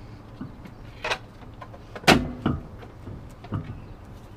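Plastic hubcap knocking and clacking against the steel wheel as it is fitted over the wheel studs and lined up with the valve stem: a few separate knocks, the loudest about two seconds in.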